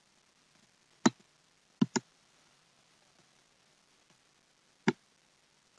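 Four sharp computer mouse clicks over quiet room tone: one about a second in, a quick double click a little later, and one more near the end.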